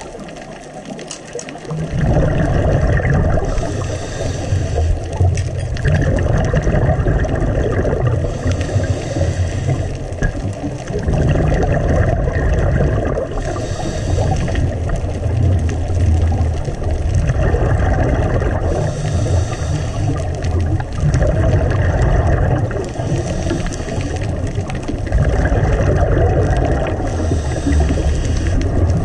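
Muffled underwater water noise picked up by a camera in its housing, gurgling and hissing and swelling in a repeating cycle about every five seconds.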